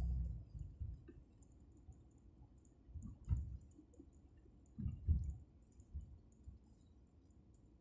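Car cabin sound picked up by a phone on a dashboard mount: a low driving rumble dies away in the first half second, then the cabin is quiet apart from two low thumps, about three and five seconds in, under faint rapid clicking.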